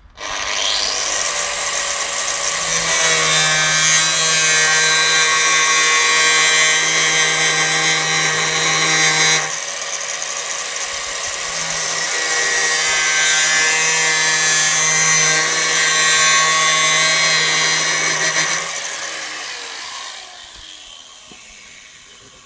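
Electric angle grinder with a cutting disc running and cutting into the metal of a 4x4's front bumper bracket, with a steady high whine over a low motor hum. About nine seconds in the sound drops abruptly and picks up again, and near the end the grinder is switched off and spins down, its pitch falling as it fades.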